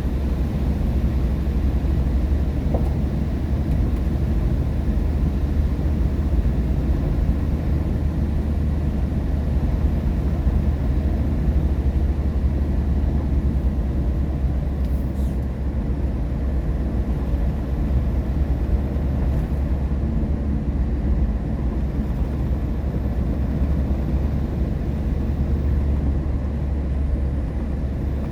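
Steady low road rumble inside a moving car's cabin during night highway driving in rain, with tyre and rain noise on the wet road.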